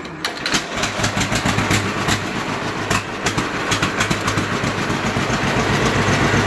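John Deere B two-cylinder tractor engine started on its foot starter switch: a sharp click as the starter engages, then the engine fires right up within about half a second and runs on, uneven at first and steadier toward the end.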